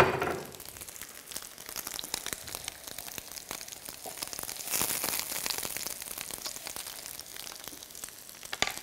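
Starch-thickened stir-fry sauce sizzling and bubbling in a frying pan, with a short knock right at the start. About four to five seconds in, a wooden spatula stirring through the sauce makes the crackle louder.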